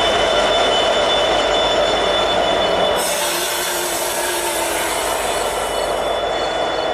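A pair of EMD SD70ACU diesel locomotives running light past at close range: engine noise and wheels on the rails, with a thin, steady, high squeal from the wheel flanges. The sound drops a little about three seconds in as the last unit goes by.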